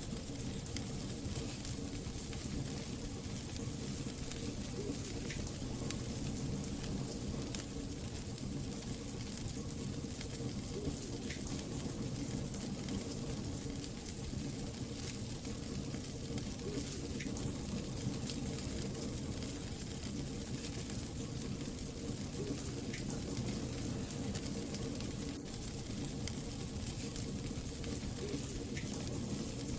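Wood logs burning in a fireplace: a steady hiss of flames with many small, scattered crackles and pops.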